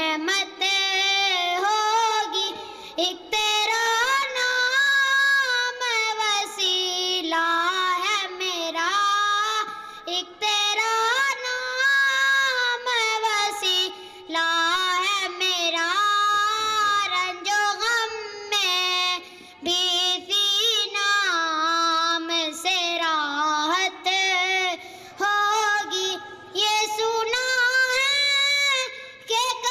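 A boy singing a naat solo into a microphone, unaccompanied, in long held notes that glide and waver between pitches, with brief pauses for breath between phrases.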